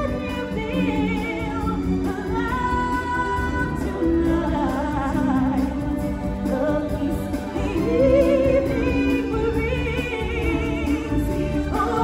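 Live stage-musical music: singers holding wavering notes over a full band accompaniment.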